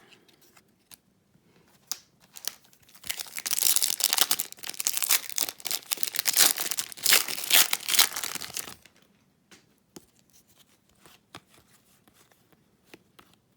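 A hockey card pack's foil wrapper being torn open and crinkled, starting about two seconds in and stopping just before nine seconds. Then faint clicks and rustles of cards being handled.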